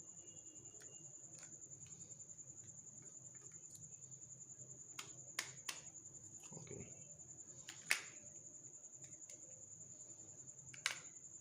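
Plastic casing of an old Samsung keypad mobile phone being prised open by hand: a few sharp clicks and snaps, the loudest about eight seconds in. A steady, high-pitched pulsing trill runs underneath throughout.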